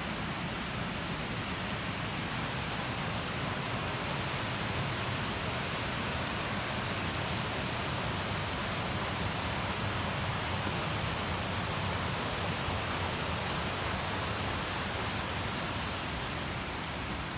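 Steady rush of a rocky mountain stream, white water tumbling over boulders.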